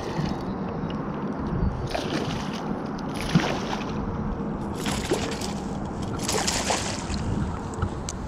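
Water splashing and sloshing in several short bursts as a hooked pike thrashes at the surface while being landed, over wind noise on the microphone.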